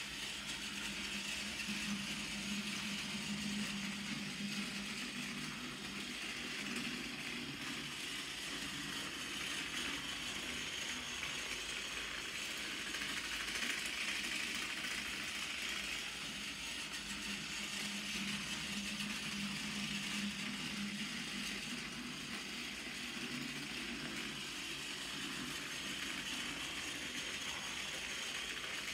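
Battery-powered Tomy toy train engine running laps of plastic track, its small motor and gears whirring steadily with the rattle of its wheels and the coach and truck behind it on the rails. The sound swells and fades in a slow cycle, about every fifteen seconds, as the train goes round.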